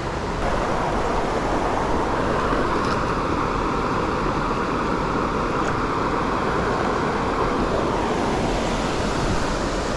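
Steady rush of fast-flowing creek water, running high and strong after rain.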